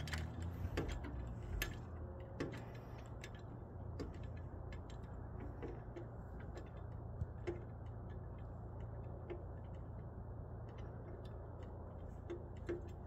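Quiet outdoor background with a steady low rumble and scattered faint ticks and clicks at uneven spacing.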